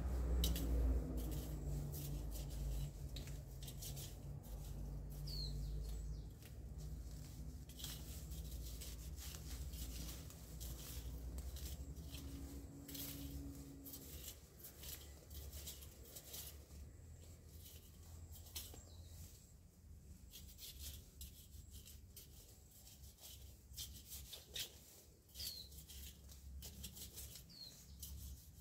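Scattered rustling and scraping clicks of hands working in garden soil and plants, with a small bird giving a few short rising chirps. A low hum and rumble fade out about halfway through.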